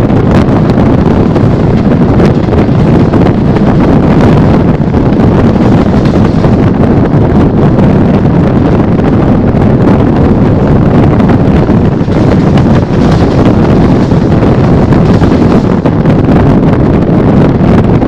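Express passenger train rushing past at high speed, a loud steady rush of wheels and air, with wind buffeting the microphone.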